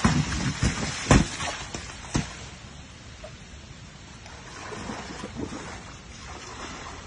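Splashing in shallow muddy water as a young elephant swings a tyre inner tube through it: a run of loud splashes over the first two seconds, then quieter sloshing as it wades.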